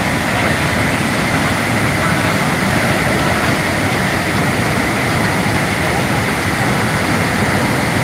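A large waterfall in full flood: a steady, unbroken rush of falling water.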